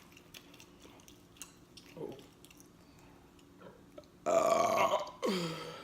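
A woman burping loudly twice in quick succession, about four seconds in. The second burp is shorter and falls in pitch.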